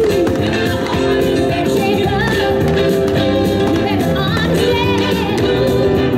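Loud music with a singing voice and backing instruments: a song from the pyromusical show's soundtrack.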